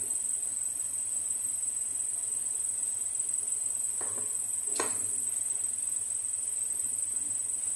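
Steady high-pitched insect trill, like crickets, with two short clicks about four and five seconds in.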